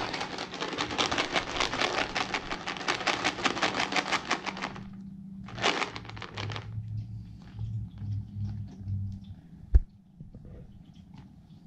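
Dry cat treats rattling inside a plastic Temptations treat tub shaken hard for about five seconds, then shaken again briefly about a second later. A single sharp thump near the end.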